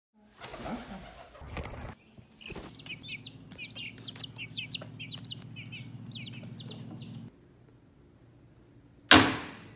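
Guinea keets and a young chick peeping, a fast run of short high cheeps over a steady low hum, cutting off abruptly. Near the end, a single loud sharp crack.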